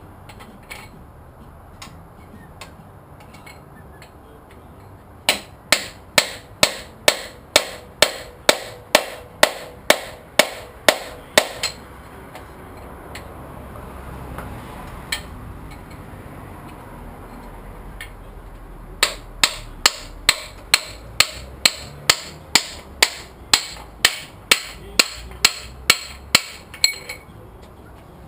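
Hammer blows driving a piston out of a cylinder bore of a Pontiac 455 V8 block, about two strikes a second. Two long runs of strikes are split by a pause with a single blow.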